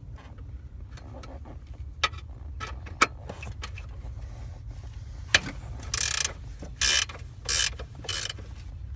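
Ratchet wrench loosening a bolt: a few sharp clicks, then four short ratcheting bursts about half a second apart near the end.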